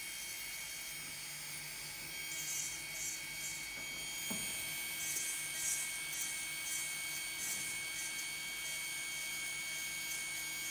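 Electric nail drill (e-file) running with a steady whine while its metal bit works around the cuticle and nail folds, with a faint scratchy hiss that comes and goes as the bit is moved.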